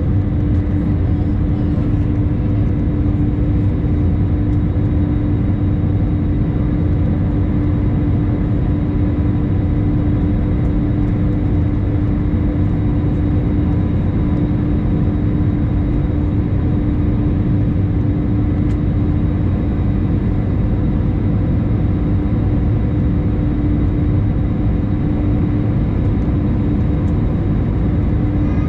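Airbus A321 cabin noise during the climb after takeoff: a steady jet-engine and airflow roar with a constant droning tone.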